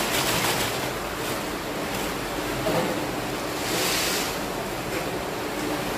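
Crisp vacuum-fried jackfruit chips pouring from a perforated steel basket into an aluminium foil bag, a rushing rattle with foil rustle that swells near the start and again about four seconds in. A steady low hum runs underneath.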